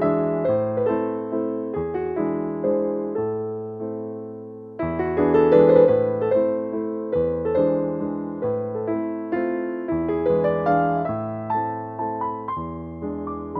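Background music: a gentle piano melody, notes struck one after another and left to ring.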